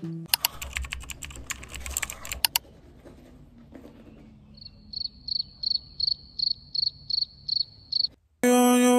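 A quick, irregular run of sharp clicks for about two seconds, then a cricket chirping: a high pulse repeated about three times a second for some three seconds. Music comes in near the end.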